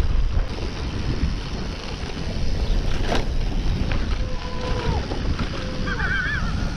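Wind buffeting the microphone of a handlebar camera on a bicycle riding fast down a dirt road: a steady low rumble and rush, with one sharp click about three seconds in.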